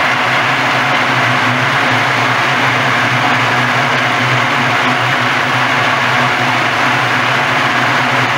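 Walnut hulling machine running steadily: a constant motor hum under a dense, even churning noise, with no change in speed or load.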